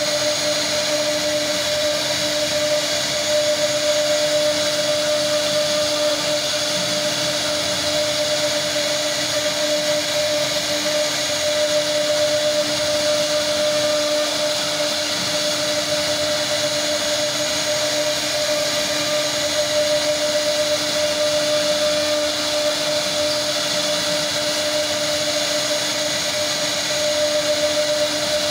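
CNC router spindle running with a steady whine while a fine engraving bit carves relief detail into a wooden panel.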